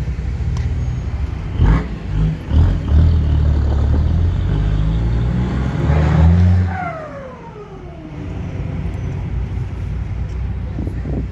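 Ford F-250 pickup engine idling with a deep rumble through its exhaust pipe. It is blipped a few times, revved and held for about four seconds, then drops back to idle with a falling whine as the revs die away. Two more short blips come near the end.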